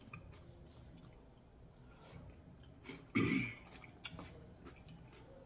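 Faint clicks and crackles of king crab legs being picked apart by hand, with one loud, short throat-clearing sound from a person about three seconds in.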